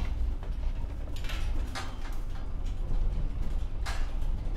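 Old truck rattling and creaking while riding in its enclosed wooden-floored cargo bed, over a steady low rumble, with a few sharper rattles along the way.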